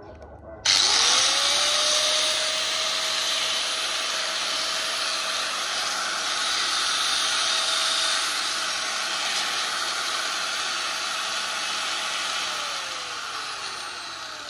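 Hitachi G10SH4 100 mm angle grinder switched on and run unloaded: its whine climbs as it spins up, holds steady, then falls away as it is switched off and coasts down near the end.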